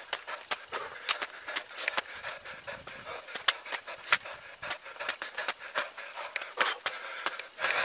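A man panting hard as he climbs a steep slope, over a run of irregular sharp clicks and rubbing noises from his footsteps and the jostled hand-held camera.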